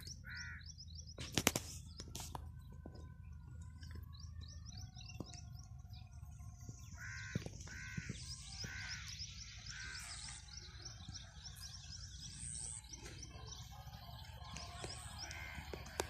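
Birds calling: harsh cawing calls, four in quick succession about halfway through and more near the end, over the steady high chirping of small birds. A sharp click sounds about one and a half seconds in.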